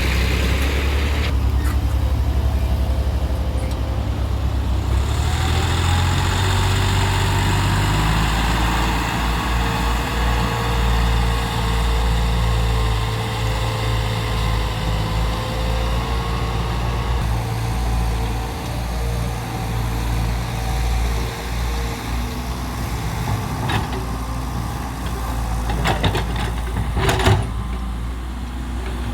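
Wheeled excavator's diesel engine running steadily under work, with a faint hydraulic whine that shifts in pitch as the machine works. A few sharp knocks come near the end, the loudest shortly before it ends.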